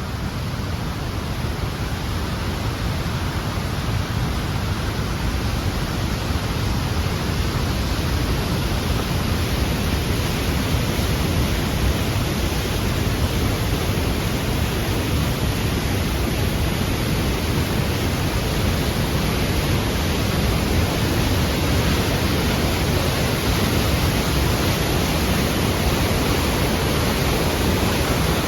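Waterfall swollen with spring snowmelt runoff, a steady, thunderous rush of heavy water that grows gradually a little louder.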